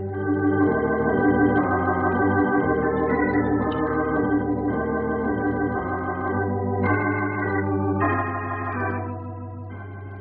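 Organ music bridge marking a scene change in a radio drama: sustained chords that shift every second or so, with a slight vibrato, fading down near the end.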